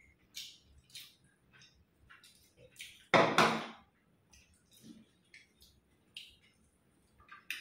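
Soft, irregular clicks and smacks of people eating rice and chicken curry with their hands. About three seconds in there is one louder, rough noise lasting under a second.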